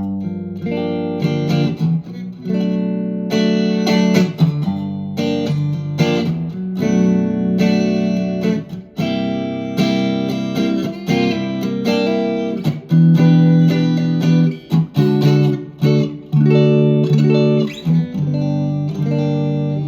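Harley Benton TE-62CC SFG Telecaster-style electric guitar played through an amp on the middle pickup position, both single-coil pickups combined: a run of picked notes and chords in a blues-rock style.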